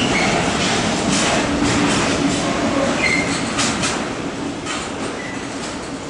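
Intermodal freight train wagons rolling past, wheels clacking over the rail joints, with a few short wheel squeals; the sound fades as the last wagon goes by.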